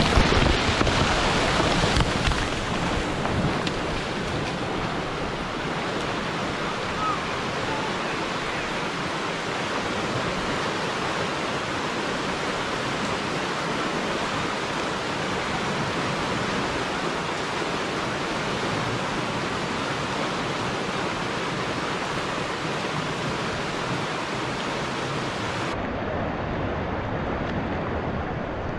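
Water rushing steadily through a beaver dam just breached by a Tannerite blast. The first couple of seconds are louder, as debris from the blast comes down.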